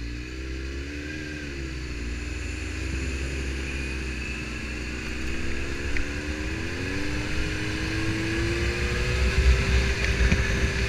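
Suzuki GSX-R750 inline-four motorcycle engine pulling away at low revs, its pitch rising about two-thirds of the way through as it accelerates, then holding steady as speed and wind rumble on the helmet camera build.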